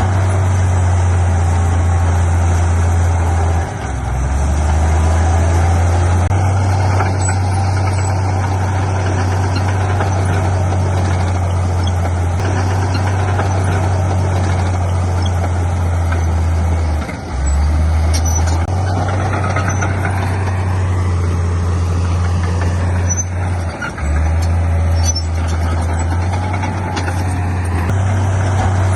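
Heavy diesel engine of earthmoving machinery running hard and steadily, its deep drone dipping briefly three times.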